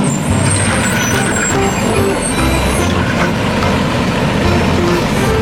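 Large truck engine running steadily, mixed with background music that has short melody notes and a regular low beat.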